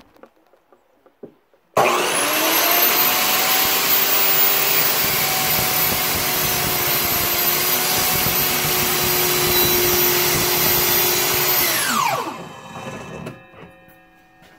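Wilton 10-inch sliding compound miter saw started about two seconds in, its motor running at a steady high whine while the blade is brought down through a white-faced particleboard board. Near the end the trigger is released and the blade spins down with a falling whine.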